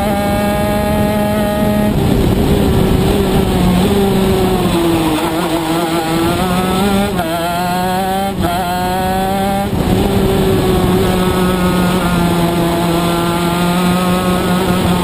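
Shifter kart's two-stroke engine at racing speed, heard from onboard. Its pitch sags, then climbs and drops sharply three times between about seven and ten seconds in as it shifts up through the gears, then holds high and fairly steady.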